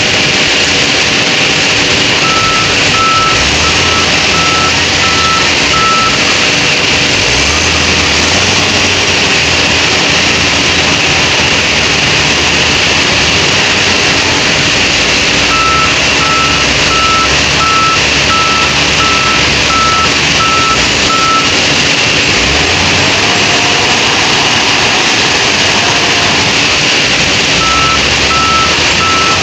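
Lovol wheel loader's diesel engine running under load, revving up a few times, while its reverse alarm sounds in three runs of steady, evenly spaced beeps as it backs away from the dump truck.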